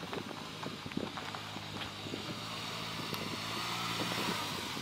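Suzuki Jimny's small three-cylinder turbo engine running at low speed as the 4x4 creeps across dry grass and gravel, its tyres crackling over the ground. It grows louder as the vehicle approaches.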